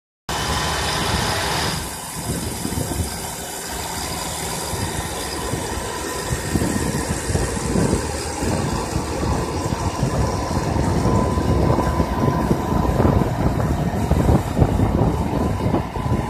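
Small tractor's diesel engine running steadily under load as it pulls a plow through the soil.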